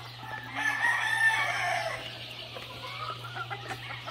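A gamecock crowing once, a long call starting about half a second in, followed by smaller calls from other fowl in the pens. A steady low hum runs underneath.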